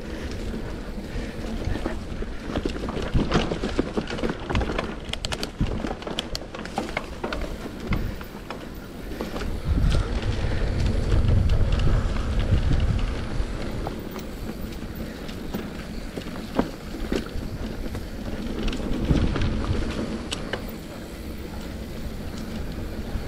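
Mountain bike riding down a dry dirt trail: a continuous rumble of tyre and wind noise with many short rattles and knocks as the bike goes over bumps. The wind buffeting on the action camera's microphone swells about halfway through.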